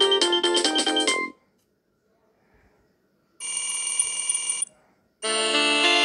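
Nokia 3220 ringtones. A quick electronic melody of short notes cuts off about a second in. After a pause comes a brief held chord of just over a second, and about five seconds in another ringtone starts with sustained, chord-like electronic tones.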